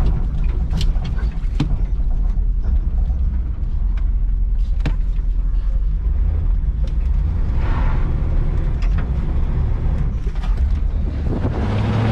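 The engine of a 1973 Chevrolet Monte Carlo running, with a steady low rumble and scattered light clicks and rattles over it.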